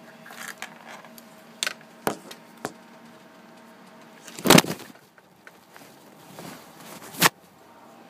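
Knocks and rubbing on an iPhone's own microphone as it slips and drops: several small clicks and knocks, a loud thump about halfway through, and another sharp knock near the end.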